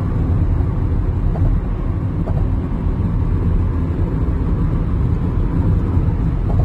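Road noise of a car on a freeway, heard from inside the cabin: a steady low rumble of tyres and engine.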